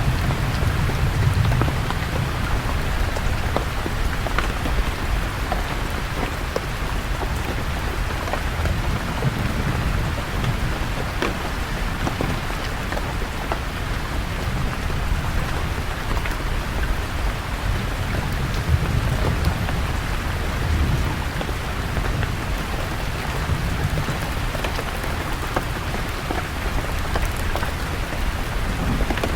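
Steady rain falling on leaves, with scattered louder drops. Low thunder rumbles swell and fade underneath, near the start, around the middle and again later.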